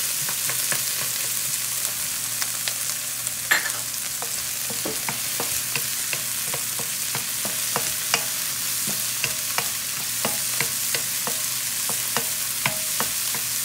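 Chopped tomatoes, onion and garlic sizzling in oil in a frying pan, with a steady hiss. A cooking utensil clicks and scrapes against the pan as they are stirred, with a sharper clack about three and a half seconds in.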